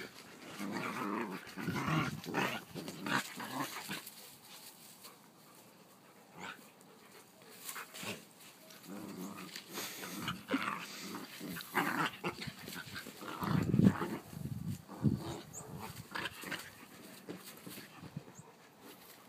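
Two dogs play-fighting, a puppy and a larger German Shepherd mix, growling in irregular bursts during the wrestling. The loudest burst comes about two-thirds of the way through, with a quieter lull before it.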